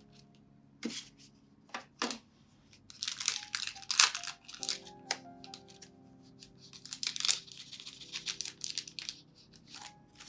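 Thin clear plastic packaging crinkling and crackling in the hands, in irregular bursts of sharp crackles. The loudest burst comes around the middle, as a plastic sticker packet is opened and its wrapper is crumpled. Soft lofi music plays underneath.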